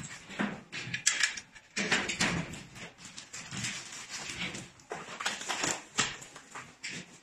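Irregular knocks, clicks and rattles of steel parts being handled: the chain-drive plate of a mobile shelving rack being fitted to its frame.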